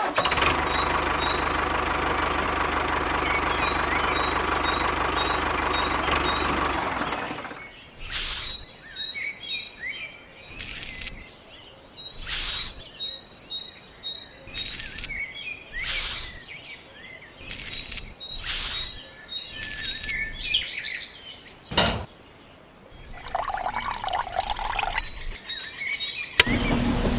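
Small birds chirping in repeated short calls, over a steady rushing noise that stops about seven seconds in; after that, a string of brief noisy sounds every second or two.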